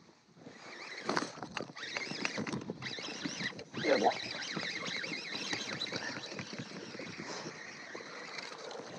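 Handling noise of a baitcasting rod and reel close to the microphone, scratchy and ticking, then a cast about four seconds in with a thin steady whir as the reel's spool pays out line.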